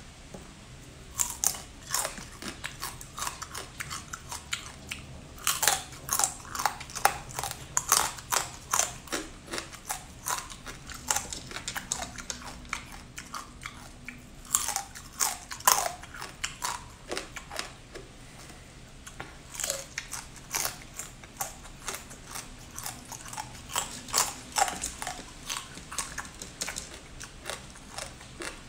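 Close-up crunching and chewing of small whole crabs, shells and all: irregular sharp cracks come in clusters as each crab is bitten and chewed.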